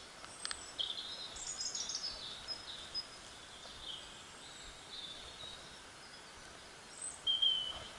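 Small birds chirping and trilling in short, high phrases over a steady outdoor hiss, with a brighter call near the end. A light click about half a second in.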